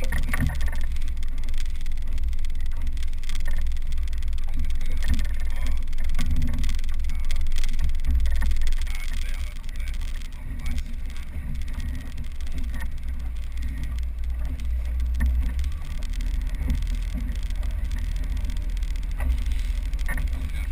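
Wind buffeting the microphone of a bow-mounted camera on a moving inflatable boat, with water rushing along the hull. The rumble eases a little about nine seconds in.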